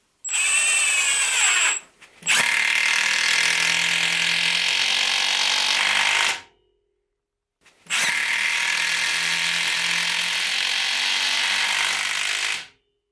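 Milwaukee M12 stubby impact wrench driving a long screw into a timber beam. A short burst comes first with the motor's pitch falling, then two long runs of steady impact hammering as the screw is driven home, each cut off abruptly.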